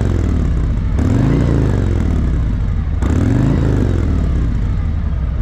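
2022 Harley-Davidson Road Glide Special's Milwaukee-Eight 114 V-twin on its stock factory exhaust, revved twice by hand from idle. Each time the pitch rises and falls back to a steady idle, with the tail of an earlier rev dying away at the start. The stock note is quiet.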